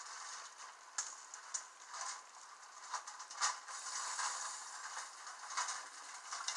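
Chicken pieces sizzling as they brown in a frying pan: a steady hiss with scattered sharp crackles and pops.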